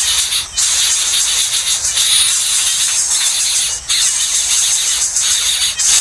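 Coucal nestlings giving a loud hissing begging call, breaking off for a moment every second or two.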